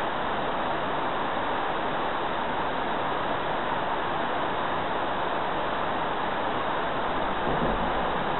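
Steady rushing of shallow creek water running fast over rocks below a dam, an even hiss with no single events standing out.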